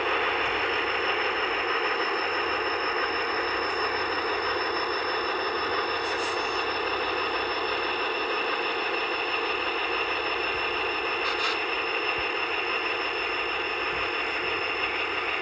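Diesel locomotive engine sound from an ESU LokSound decoder, played through small speakers in an HO-scale Atlas SD35 model as it runs slowly on the track. The engine runs steadily, with a thin high tone held throughout.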